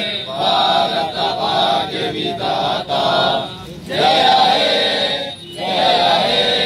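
A young man's voice singing a patriotic song into a handheld microphone, in long held lines with short breaks between them.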